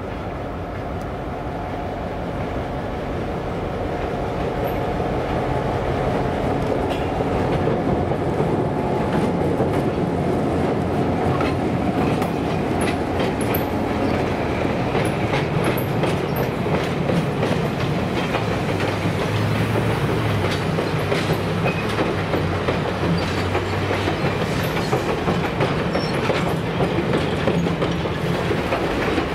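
Diesel-hauled passenger train rolling over a steel girder bridge, growing louder over the first several seconds, then holding steady. Wheels click over the rail joints from about halfway in, over a low steady diesel engine drone.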